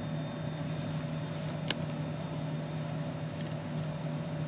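Steady low mechanical hum, with one sharp click about two seconds in and a fainter click near the end.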